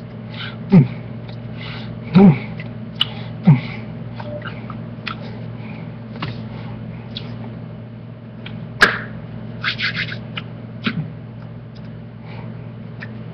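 A man's short wordless vocal sounds, each falling in pitch, three times in the first few seconds, with scattered sharp clicks and taps, the loudest about nine seconds in, over a steady low hum.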